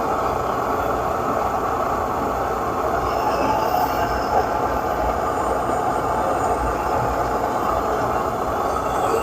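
Optimus 8R pressurized white-gas stove burning steadily, its burner giving an even rushing noise under a coffee maker that has come to a boil.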